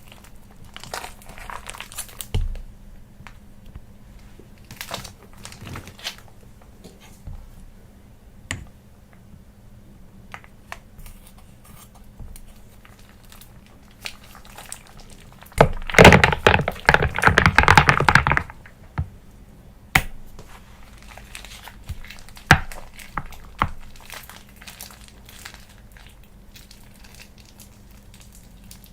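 Scattered clicks, knocks and crinkling from handling containers and ingredients while making slime, with one loud burst of dense crackling noise lasting about three seconds past the middle.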